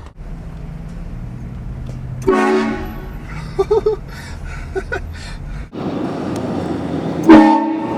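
Aftermarket air train horn blasting twice in short bursts about five seconds apart, the second blast louder, over a low steady rumble.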